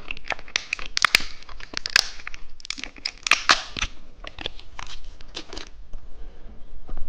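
Crinkling and tearing of plastic candy packaging being handled and opened by hand: a run of short, irregular crackles.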